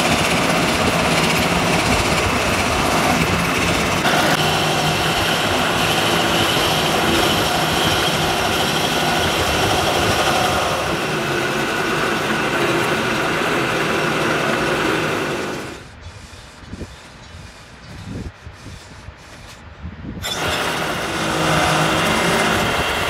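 Metal lathe turning a welded pinion gear, its cutting tool scraping across the hard weld build-up in a steady, loud metallic grinding. About sixteen seconds in the noise drops away for a few seconds, with only a few faint knocks, then the cut resumes at full level.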